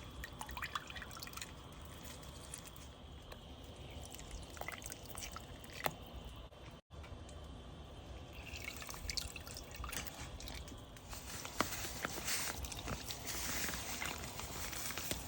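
Liquid pouring and dripping into a pot of seasoned water for a crab boil, with scattered small clicks. After a break about seven seconds in, a steady hiss grows louder.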